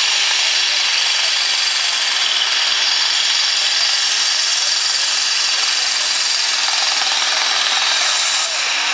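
Light super class pulling tractor's engine running flat out under full load while dragging the weight sled, a harsh, steady scream. The sound drops a little near the end.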